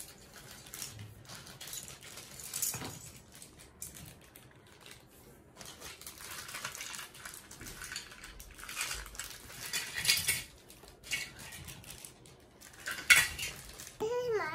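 Plastic bags crinkling and small plastic toy parts rattling and clinking as they are handled and unpacked, in uneven bursts, the loudest a sharp clatter near the end. Music starts just as it ends.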